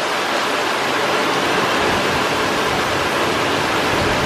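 Heavy rain pouring down in a thunderstorm, a steady, even rushing hiss.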